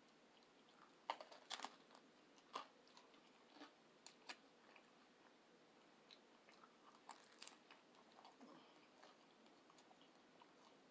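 Faint chewing and biting of food, with scattered small crunchy clicks.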